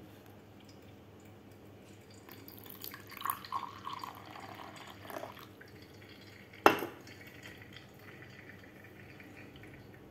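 Brewed coffee poured from a glass server into a small drinking glass, a trickling splash lasting about three seconds, then one sharp glass clink about six and a half seconds in as the glassware is set down.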